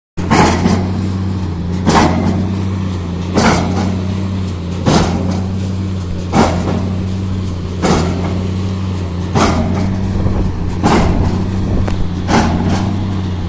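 MAIT HR 180 hydraulic piling rig running steadily with a low diesel drone, overlaid by sharp knocks that come regularly, about one every one and a half seconds.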